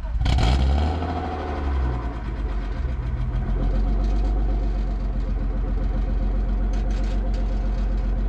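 BMW E36 engine just started: a brief rev about half a second in, then settling into a steady idle.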